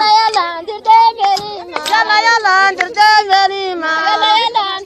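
A high-pitched voice singing a Toubou song in long, bending, ornamented phrases, cut through by sharp percussive clicks.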